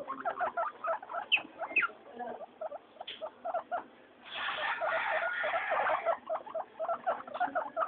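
Guinea pigs squeaking: a quick run of short, repeated squeaks with a couple of rising squeaks, and a louder, denser stretch of squeaking from about four to six seconds in.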